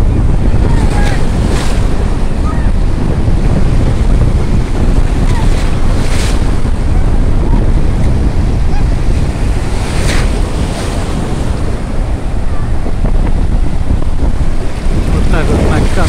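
Storm surf on the Azov Sea: breaking waves and foaming water washing in at the shoreline, with strong wind buffeting the microphone in a heavy low rumble. Several louder hissing wave crashes stand out, about a second and a half, six and ten seconds in.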